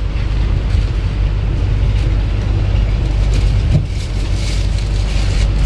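Strong wind buffeting the microphone: a loud, unsteady low rumble with rushing hiss over it.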